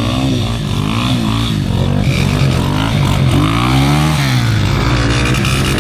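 Several small Honda Cub motorcycle engines revving up and down together. Their pitch rises and falls in repeated swells, the biggest about three to four seconds in.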